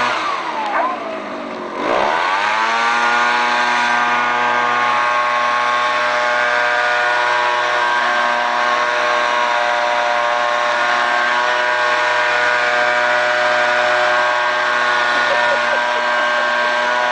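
Petrol backpack leaf blower running: the engine drops off and dips low near the start, climbs back up about two seconds in, then holds a steady high-revving whine over the rush of blown air.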